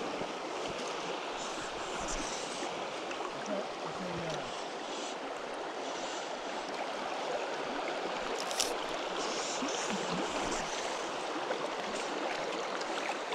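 Shallow stony stream running over a riffle, a steady rush of water, with one sharp click about two-thirds of the way through.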